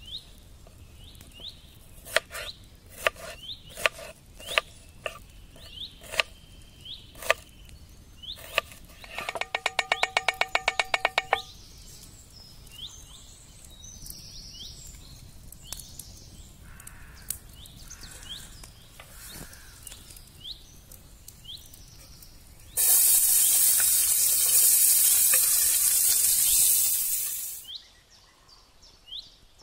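Kitchen knife cutting an onion on a wooden cutting board: single cuts, then a fast even run of chops about nine seconds in. Later, diced onion in hot fat in a frying pan over embers sizzles loudly for about five seconds, then dies away. Birds chirp throughout.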